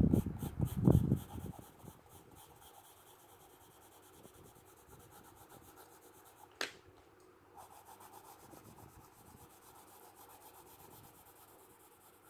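Graphite pencil scratching faintly on textured drawing paper in repeated shading strokes along the hair. A few low thumps in the first second and a half, and one sharp click about six and a half seconds in.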